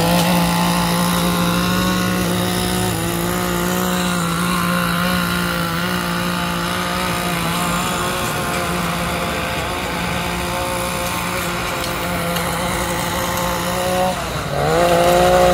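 A string-trimmer lawn edger's small engine running steadily at high speed. Near the end its pitch dips briefly, then revs back up.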